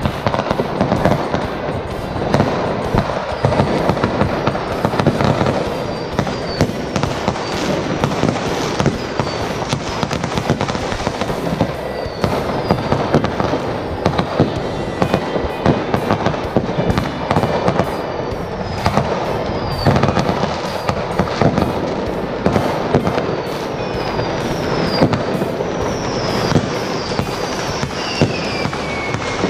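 Many fireworks going off at once: continuous bangs, crackling and popping, with short falling whistles several times and a longer falling whistle near the end.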